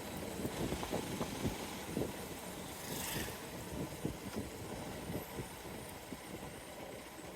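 Hero XPulse 200 Pro's single-cylinder engine running, with irregular short knocks through it and a brief hiss about three seconds in.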